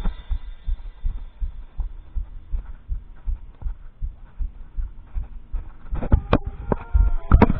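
Marching band in a soft passage: a steady pulse of soft low thumps, with faint brass chords entering late and a few sharp tenor drum strikes near the end.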